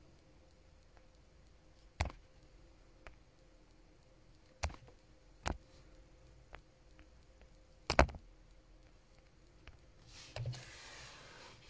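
Fingers tapping on a phone close to its microphone: a few separate sharp taps over quiet room tone, a double tap about eight seconds in the loudest, then a rustle of handling from about ten seconds in.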